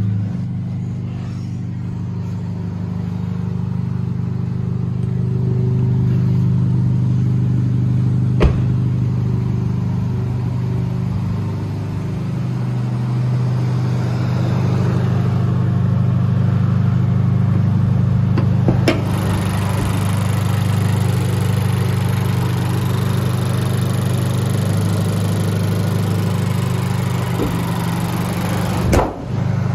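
2018 Honda Civic Sport's 1.5-litre turbocharged four-cylinder engine idling steadily, with three sharp knocks along the way.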